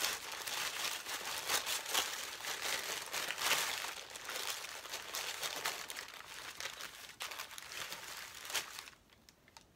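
A small wrapped packet being unwrapped by hand: its wrapping crinkles and crackles continuously, then stops about nine seconds in.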